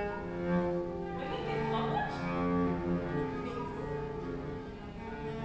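Cello bowing long sustained notes in a free improvisation, with other held instrumental tones layered over it.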